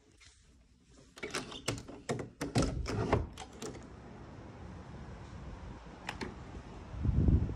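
Glass patio door being unlatched and opened: a quick run of clicks and rattles from the handle and latch, then a steady hiss of outdoor air once it is open. A loud low thump comes near the end.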